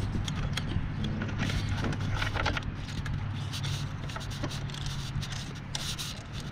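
Small metal clicks and light scraping of a bolt and nut being fitted by hand to a motorcycle's fender-eliminator bracket, over a steady low hum.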